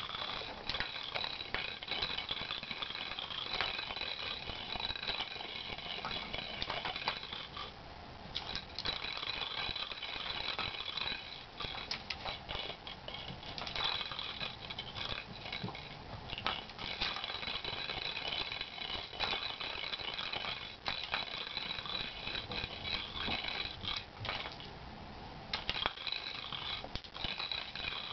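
Plastic circular track cat toy rattling as a kitten bats at it: something rolls and clatters around the plastic track, with frequent sharp clicks as it is knocked along, pausing briefly now and then.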